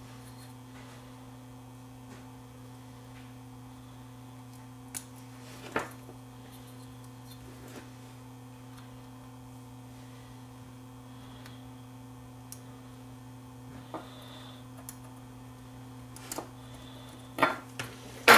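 Steady low hum, with a few light clicks and taps of a soldering iron and small tools being handled on a workbench; near the end, several sharper metallic clicks as the iron is set down and the meter leads are picked up.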